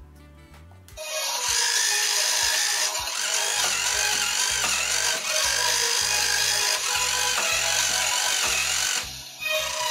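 Battery-powered Barbie toy horse running its small electric motor as it moves its legs, with a whirring, pulsing mechanical sound under a song playing from its built-in speaker. The music starts about a second in and breaks off briefly near the end.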